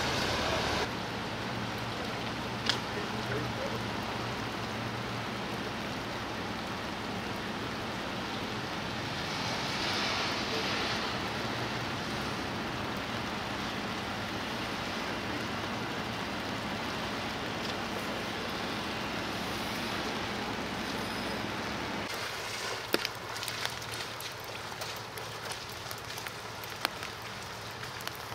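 Steady outdoor hiss over a low, even hum. Both change at edits: the hum drops out about three-quarters of the way through, leaving the hiss with scattered sharp clicks.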